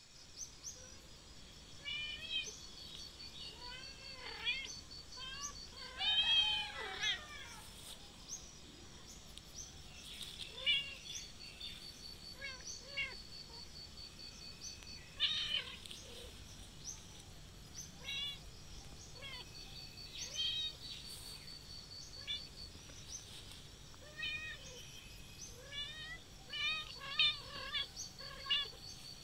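Kittens mewing again and again: many short, high-pitched mews, some in quick runs, the loudest run about six seconds in and another cluster near the end.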